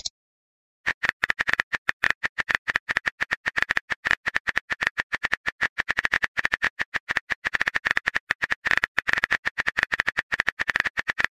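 Texting-app keyboard sounds: a quick, even run of short tap clicks, about nine a second, as a message is typed out. The clicks start about a second in.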